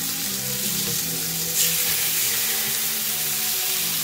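Pork tenderloin sizzling in hot oil in a frying pan, a dense steady hiss. About one and a half seconds in, the sizzle suddenly flares louder, as a second tenderloin is laid into the pan.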